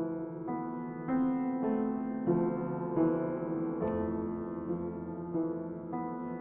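Piano music, with a new chord or note struck about every half second and held.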